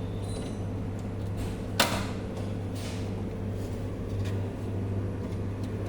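Steady low mechanical hum with one sharp knock about two seconds in.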